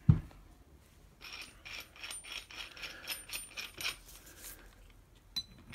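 A dull thump as the Honda CG125 cylinder head is moved on the cloth-covered bench, then a run of light metallic clicks and clinks as the steel valve spring compressor is handled and its threaded parts adjusted.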